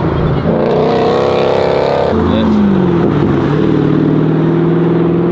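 Car engine accelerating hard. Its pitch drops at a gear change about two seconds in, then it pulls on at a steady high pitch.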